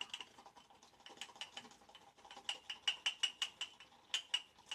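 Shaving brush swirling a hard puck of Williams Mug Shaving Soap in small, quick circles in a ceramic mug, with a stream of sharp, ringing clinks that come thicker and faster after about two seconds; the speaker calls it obnoxious clinking.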